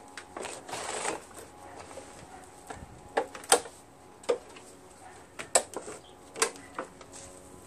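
A scraping rustle, then a string of sharp knocks and clatters as a Toro Recycler 22 walk-behind lawn mower, engine off, is tipped over onto its side and handled.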